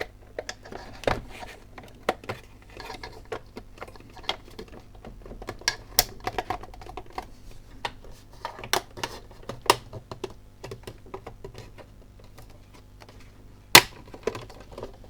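Irregular clicks, taps and knocks of hard plastic as the clipped top casing of a Lavazza coffee machine is pried and worked loose, with a sharp snap near the end.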